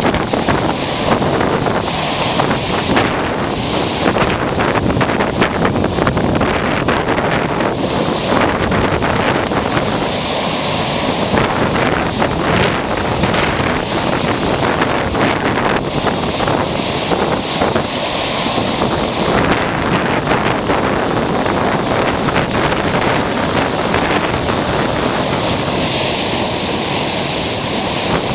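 Ocean surf breaking and washing up a beach in a steady roar of water, with wind noise on the microphone.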